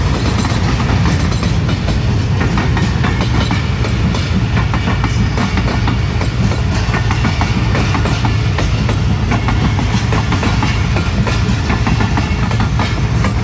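Railway coaches and wagons of a relief train rolling past on the next track, their wheels clacking over the rail joints. Underneath is a steady low diesel engine rumble.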